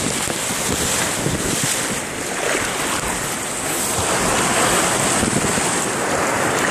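Rushing whitewater pouring down a natural rock water slide, heard from a phone carried down in the current, with water splashing over the microphone. It is a loud, steady rush.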